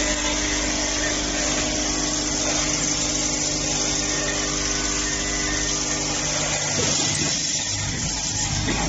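Syringe assembly machine running, with its vibratory bowl feeders: a steady electric hum with a mechanical hiss and rattle over it. The lowest part of the hum thins out briefly about seven seconds in.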